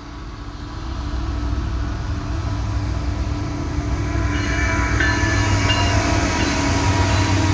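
CN freight train's lead GE ES44AC diesel-electric locomotive approaching, its engine rumbling with a steady hum, growing steadily louder as wheel and rail noise builds over the second half.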